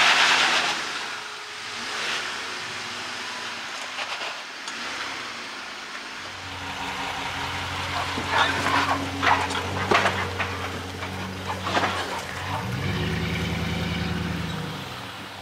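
Jeep engine running low and slow while crawling over rock, with crunches and knocks from the tyres on rock and gravel and a brief rev near the end. A loud hiss fades out in the first second.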